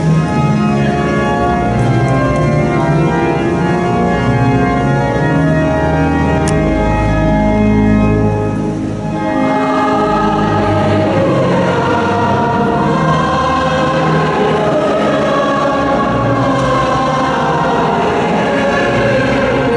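Church organ playing slow sustained chords; about halfway through, a choir comes in and sings a hymn with the organ.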